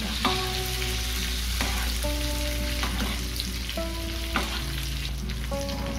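Salmon steak sizzling in bubbling butter and lemon juice in a nonstick frying pan. A spoon stirs and taps against the pan a few times as the sauce is basted over the fish.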